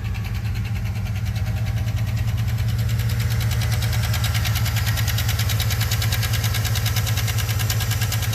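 2013 Chevy Suburban V8 idling with a fast, even ticking from the top of the engine. The mechanic takes it for lifter noise, possibly a broken lifter or camshaft, tied to a cylinder misfire and low oil pressure.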